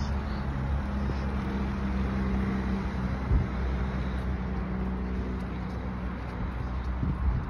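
Car engine running at low speed as a small SUV drives slowly away, a steady low hum that fades near the end. A single knock about three seconds in.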